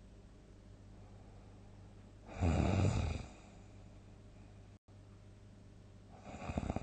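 A sleeping person snoring loudly: a rattling snore about two seconds in, lasting about a second, and another starting near the end, over a steady low hum.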